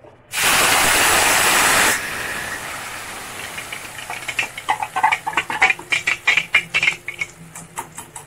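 Wet ground gravy paste poured into hot oil in a kadai, which sizzles loudly as soon as it hits about half a second in, then eases after about two seconds into a softer, steady hiss. From about four seconds a run of quick clicks and scrapes comes over the sizzle as the last of the paste is wiped off the steel plate into the pan.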